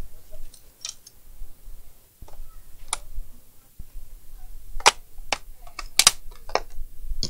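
Plastic snap-fit clips of a Lenovo ideapad 100S bottom cover popping loose as the cover is pried off by hand: a series of sharp snaps, coming closer together in the second half.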